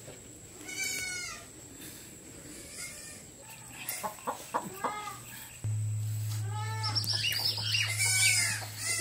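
Chickens clucking in short calls, once about a second in and then in a busy run through the second half. A steady low hum starts suddenly just past halfway.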